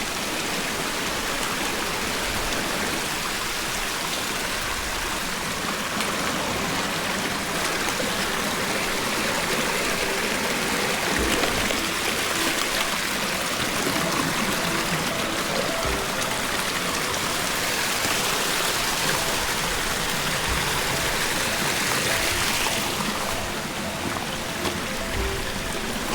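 Steady rush of running water, with faint music underneath.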